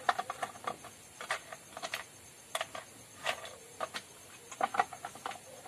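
Irregular clicks and knocks as the front cover panel of a Bajaj RE three-wheeler is fitted back in place by hand, thickest in the first second and again near the end.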